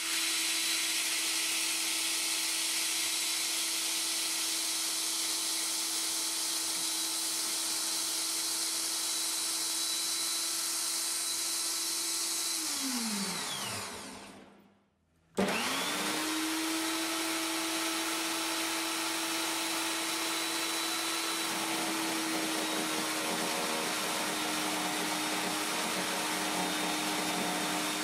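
Mini hobby table saw's small motor running with a steady whine. About 12 seconds in it is switched off and winds down to a stop, then it is switched on again and spins back up to speed. From about 21 seconds a rougher sound joins it as the blade cuts lengthwise along a 10 mm wooden dowel.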